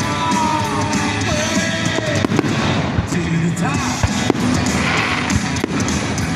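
Fireworks bursting in quick succession, sharp bangs scattered all through, over loud background music.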